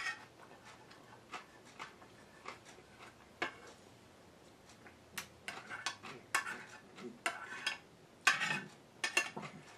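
Metal spoon clinking and scraping against a bowl while eating: one sharp clink at the start, then scattered light taps, coming faster and in clusters in the second half.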